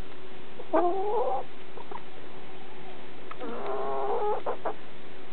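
Domestic hens feeding on scattered grain give two drawn-out clucking calls, one about a second in and another near four seconds. A few short sharp taps of beaks pecking the concrete come close by.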